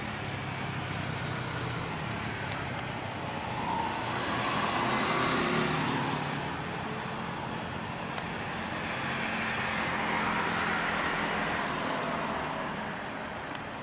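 Jet engines of an Airbus A320-family airliner running as it rolls along the runway: a steady roar that swells about a third of the way in and again later.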